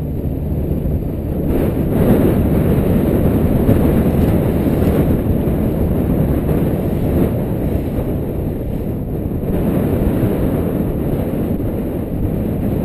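Strong wind buffeting the microphone in a steady, rumbling rush, with water splashing along the hull of a moving fishing boat on choppy water.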